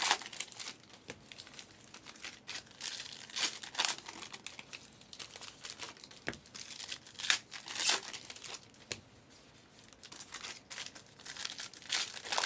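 Plastic trading-card pack wrappers crinkling and tearing as packs are opened by hand, in irregular crackling rustles.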